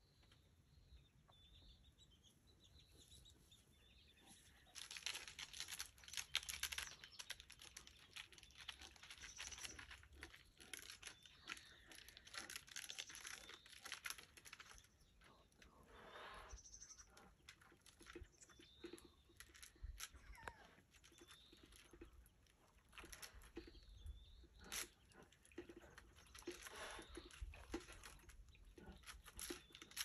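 Faint, irregular scratching and crackling of a bear's claws gripping pine bark as it climbs the trunk, starting about five seconds in. A few faint bird chirps come before it.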